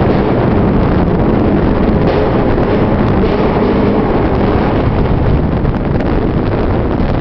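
Car being driven at speed through a road tunnel: steady engine and tyre noise with wind buffeting the microphone.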